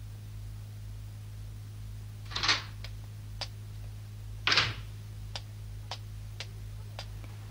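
Animation sound effects: a door opens and shuts with two short swishing sweeps about two seconds apart. Light footsteps follow, about two a second, over a steady low hum.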